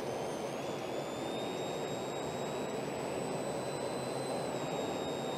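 Steady road and engine noise inside a moving car, picked up by a dashcam. A thin high whine runs over it, rising slightly about a second in and dropping a little near the end.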